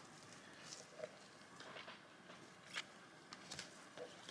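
Faint, scattered soft clicks and rustles of trading cards being handled and flipped through, about half a dozen over quiet room tone.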